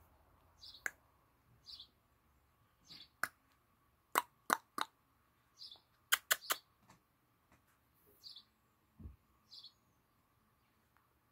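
Birds chirping: about six short, high chirps spread out. Between them come sharp clicks, the loudest sounds, in two groups of three in the middle, and a short low thump near the end.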